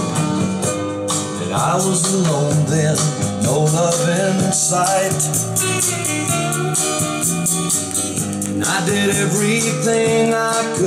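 A song with singing and guitar, played from a vinyl record on a 1970s Turner turntable and amplifier and heard through Turner loudspeaker cabinets.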